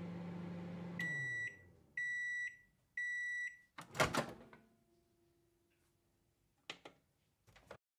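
Microwave oven finishing its cycle: the running hum winds down, then three beeps about a second apart, then the door pops open with a clunk, followed by two faint clicks near the end.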